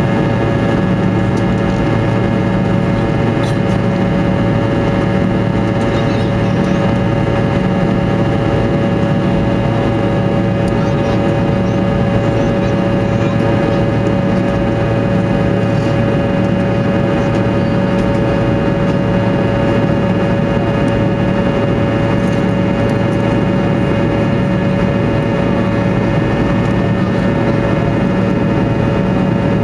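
Fokker 100's rear-mounted Rolls-Royce Tay turbofan engines heard from inside the cabin, running at steady power. The sound is a loud, constant drone with several steady whining tones over a deep hum that beats in a slow, even pulse.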